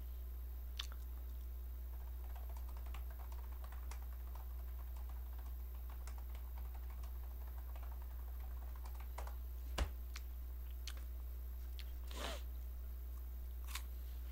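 Sparse small clicks and taps over a steady low hum, with one sharper knock about ten seconds in.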